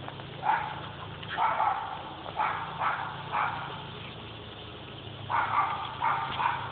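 A dog barking in short repeated barks, in two bouts: five or so in the first few seconds, then another quick run of three or four starting about five seconds in.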